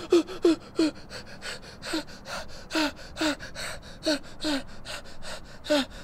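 A man's short gasping, whimpering cries of pain, about two a second, each one falling in pitch, with breathy panting between them.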